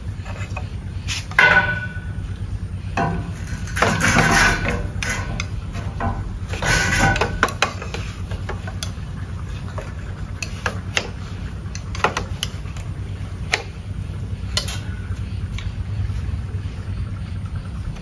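Clattering and scraping spells in the first half, then a few sharp single knocks, over a steady low hum.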